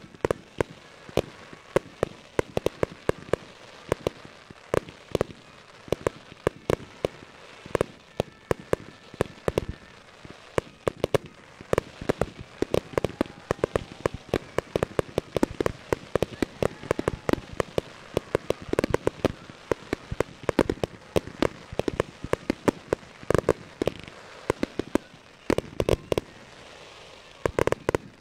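Aerial fireworks bursting: a dense run of sharp bangs and crackles, several a second, easing briefly shortly before the end.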